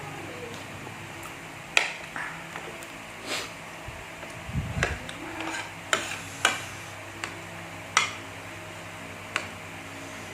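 Spoon clinking against a bowl while eating, a handful of sharp separate clinks with a duller thump near the middle.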